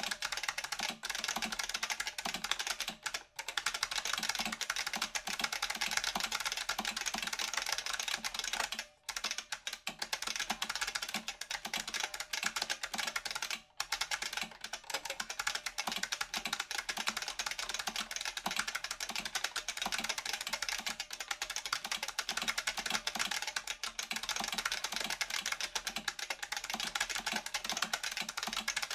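Fast continuous typing on an IBM Model F XT keyboard's stock buckling-spring switches: dense, crisp clacks, each with a ping from its spring, broken by a few short pauses.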